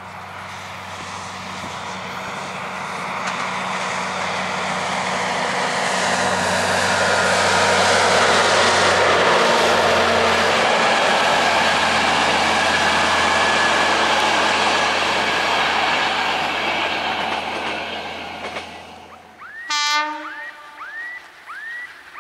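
A diesel-hauled passenger train approaches and passes: a steady low locomotive engine drone under a swelling rush of wheel and rail noise, loudest in the middle, then fading away. Near the end the sound changes abruptly to a short loud tone followed by a rising chirp repeated about every two-thirds of a second.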